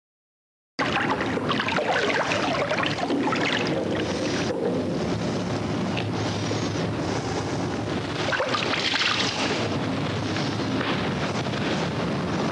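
Water churning and splashing around high-frequency pulsed electromagnetic cores submerged in it. The dense, crackling sound starts suddenly about a second in and then holds steady.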